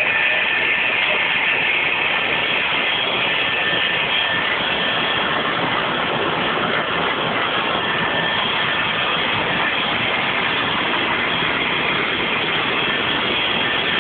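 Factory machine running steadily: a loud, even noise with a faint high whine held on one pitch.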